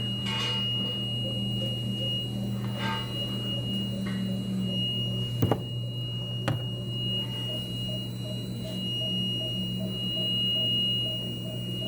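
Steady low electrical hum with a constant thin high-pitched whine. There are two faint clicks about halfway through, and from then on a faint, quick, regular pulsing.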